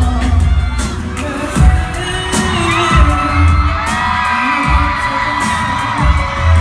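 Concert music played loud over the PA, with heavy bass thumps about once a second, and the crowd screaming over it, heard from within the audience.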